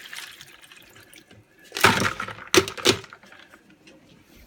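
Refrigerator door dispenser dropping cubed ice into a bowl. The cubes clatter in a loud burst about two seconds in and two more shortly after, with a faint trickle of water before them.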